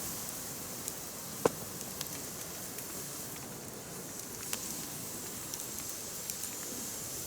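Firewood burning: a steady hiss with scattered small crackles, and one loud sharp pop about a second and a half in, with a smaller pop about three seconds later.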